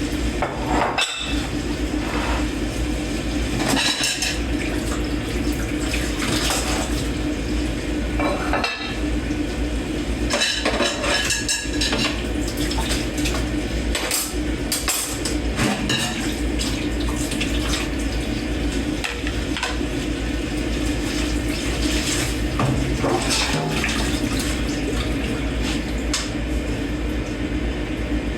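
Dishes and cutlery being washed by hand in a kitchen sink under running water, with frequent irregular clinks and clatters of plates and forks against each other and the sink.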